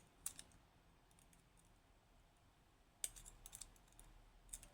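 A few faint, sharp metallic clicks from a tool working at the C-clip on a Mottura C28+ dimple lock cylinder, to get the clip off: one just after the start and a short cluster about three seconds in.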